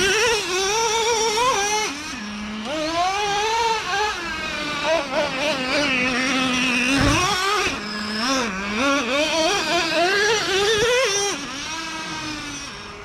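Traxxas Revo 3.3 nitro RC truck's small two-stroke glow engine revving up and down as it is driven, its pitch rising and falling with the throttle and settling briefly to a steady lower note a few times. There is a single low thump about seven seconds in.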